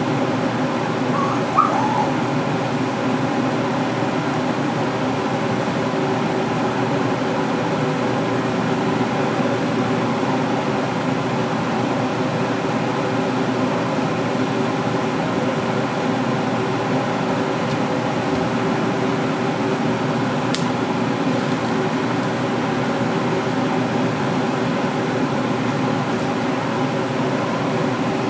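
Steady hum of a fan running, an even whirring noise with several constant tones in it. A single faint sharp click comes about twenty seconds in.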